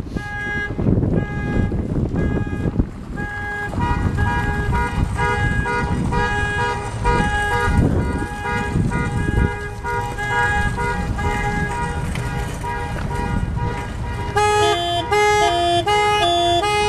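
Several car alarms going off at once: a horn honking in a steady on-off rhythm, joined about four seconds in by a second pulsing alarm tone, and near the end by an alarm siren alternating between two notes.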